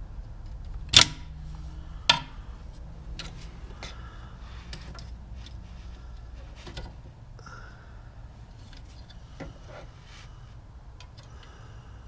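Needle-nose pliers and a screwdriver clicking against rear drum-brake parking-brake hardware. There are two sharp metallic clicks about one and two seconds in, then scattered lighter taps and clinks.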